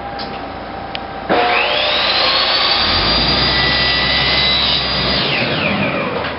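Gas chainsaw throttled up suddenly about a second in, its whine climbing to full speed, held there for about four seconds, then winding back down near the end. A steady engine hum runs underneath.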